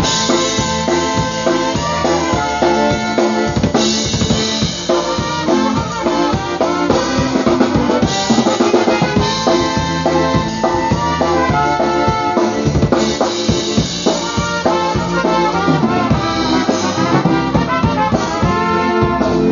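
Live polka band playing a dance tune: a squeezebox carrying the melody over a steady drum-kit beat.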